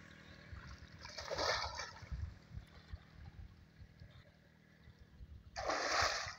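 Water splashing as people wade and swim in a muddy canal: a short splash about a second and a half in and a louder one near the end, over faint low rumbling.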